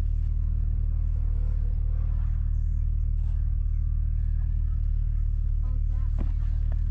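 A motor vehicle running at a steady engine speed: a low, even drone that holds one pitch, with no revving.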